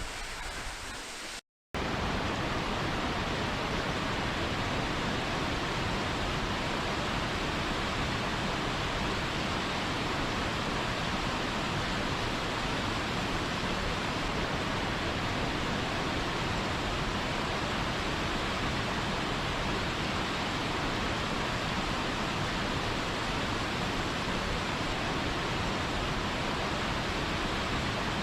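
Steady, even rush of a waterfall, starting after a brief cut to silence about a second and a half in.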